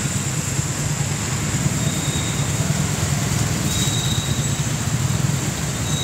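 Steady city-street traffic noise, dominated by a low engine rumble from motor vehicles.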